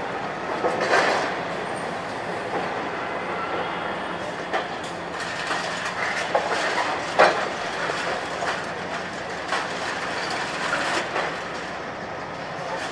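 Heavy demolition machinery wrecking a reinforced-concrete building: steady machine noise under irregular crashes and clanks of breaking concrete and steel, the sharpest bang about seven seconds in.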